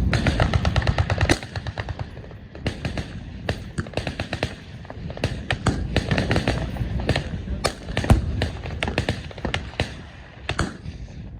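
Automatic gunfire from several machine guns firing over one another. A dense stretch of rapid shots lasts about the first second and a half, then short bursts and single shots overlap unevenly.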